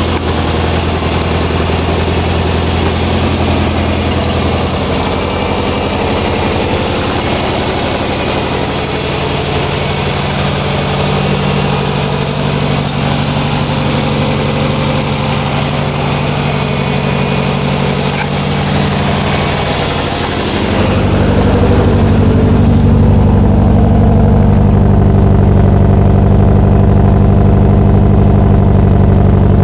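Nissan SR20DET turbocharged inline-four running at idle with a misfire. About twenty seconds in the sound turns deeper and a little louder.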